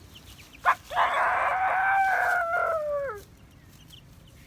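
A rooster crowing: one long call of about two seconds that ends in a falling glide, just after a brief sharp knock.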